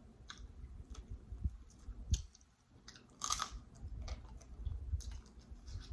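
Close-miked chewing and biting of food, with a low steady mouth rumble and a few sharp crunching crackles, the loudest about three seconds in.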